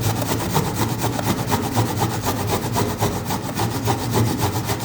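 A small onion being grated by hand on a metal grater: quick, even rasping strokes, several a second.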